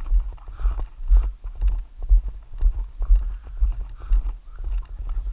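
Footsteps walking on a gravel dirt road, about two steps a second, each a low thud with a short crunch of gravel.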